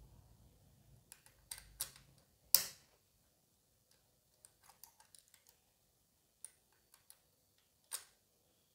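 Metal bobbin case being pressed by hand into the hook of a Jack F4 industrial sewing machine: a series of small metallic clicks and ticks, the sharpest about two and a half seconds in. A crisp 'kat' click as the case is pushed in is the sign that it has seated properly.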